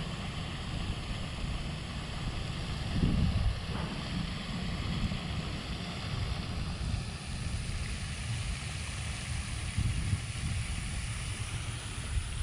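Wind buffeting the microphone: a steady, uneven low rumble with a fainter hiss above it.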